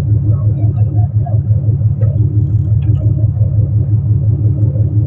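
Fishing boat's engine running steadily, a low pulsing hum that does not change.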